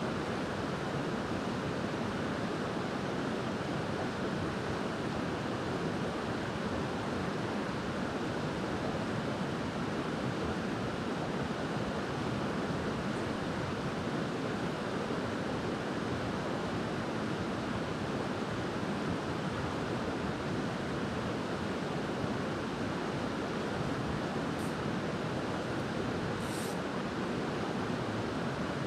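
Shallow mountain creek running steadily: an even rush of flowing water.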